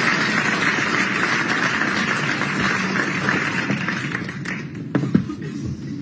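Audience applauding, a dense clatter of clapping that dies away after about four and a half seconds, followed by a couple of sharp knocks on the table.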